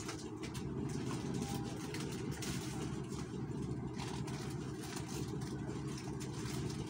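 A steady low machine hum, like an engine idling, runs throughout. Faint rustling of plastic sachet strips being handled and hung up sits on top of it.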